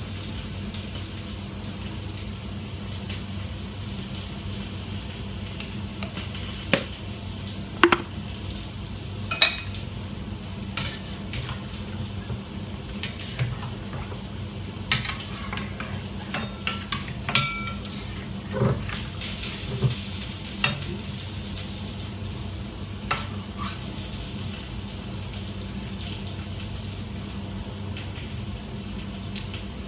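Metal ladle stirring curry in a stainless steel pot, with scattered sharp clinks and knocks against the pot's side through the middle of the stretch. Underneath, a steady low hum and a faint sizzle.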